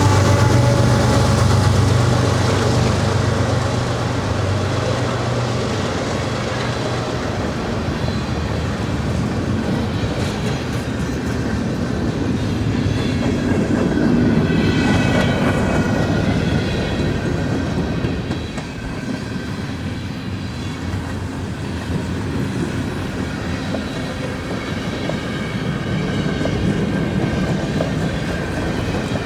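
CPKC mixed manifest freight train passing at speed: a diesel locomotive's low engine drone fades over the first few seconds into the steady rumble and clickety-clack of freight cars rolling by. Thin, high wheel squeals come and go.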